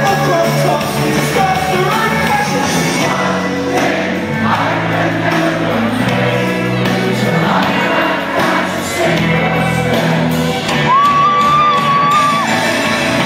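Live band music with a lead vocal, played loud in a large hall. Near the end the singer holds one long high note.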